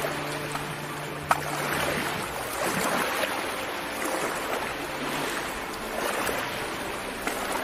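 Riverbank collapsing into a river: a continuous rushing of sliding earth and churning water that swells and eases, with one sharp knock about a second in.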